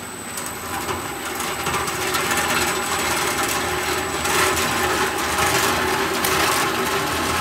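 The agitator of a PMC-100L liquid homogenizing mixer running, its motor drive humming steadily while the paddles churn liquid in the stainless tank, with clicking and rattling on top. It grows louder over the first two seconds as the speed knob is turned up, then runs steadily.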